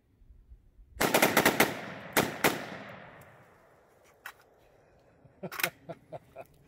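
Fast string of 300 Blackout shots from a 7.5-inch AR-15 pistol with a Fostech Echo binary trigger in binary mode: a rapid burst of about six shots about a second in, then two more, with the echo trailing off. A few quieter clicks follow near the end.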